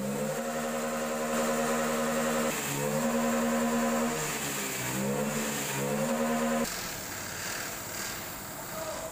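A slow melody of long held notes, gliding from one pitch to the next, stops abruptly about six and a half seconds in. After it only a faint steady hiss remains.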